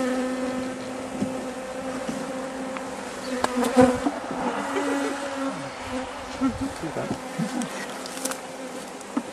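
Honeybees buzzing in the air around an opened hive: a steady hum, with a few sharp knocks about three and a half to four seconds in.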